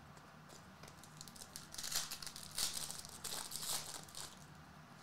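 Foil wrapper of a hockey card pack crinkling and tearing as it is ripped open by hand, in a run of crackles that starts about two seconds in and dies away about four seconds in.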